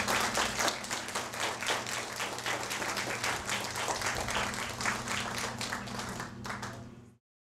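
Audience applauding, a dense patter of many hands clapping that thins out and then cuts off abruptly near the end, over a steady low electrical hum.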